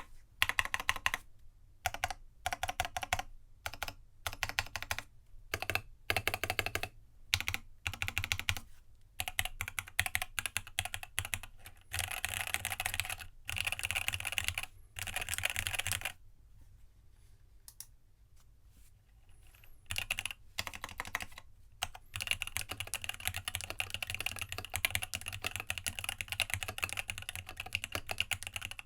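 Typing on a custom mechanical keyboard with Gateron Tealios linear switches on a brass plate with an internal dampener, fitted with PBT keycaps. The keystrokes come in short bursts with brief pauses, then a lull of a few seconds about two-thirds of the way in, followed by steady fast typing to the end.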